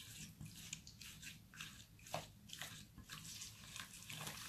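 A hand squishing and kneading a soft, oily paste of creamed butter, sugar and crumbled egg yolks on a plate: faint, irregular wet squelches, about two a second.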